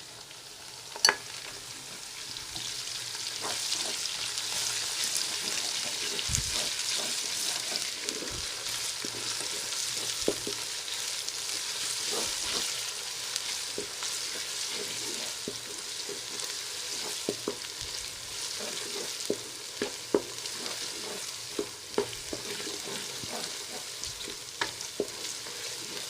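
Ginger-garlic paste and onions sizzling in hot ghee in a kadhai, stirred with a spoon that clicks and scrapes against the pan. The sizzle swells about two seconds in, after one sharp tap about a second in.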